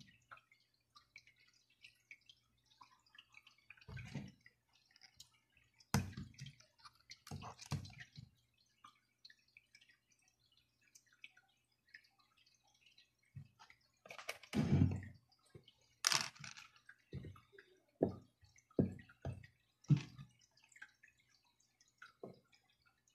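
Scattered light taps, clicks and handling noises of cucumber slices and wooden sticks on a plastic cutting board, with a run of about five short knocks in the second half, over a faint steady low hum.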